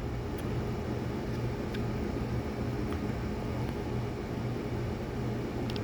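A steady low machine hum with an even pulsing beat, with a few faint clicks over it.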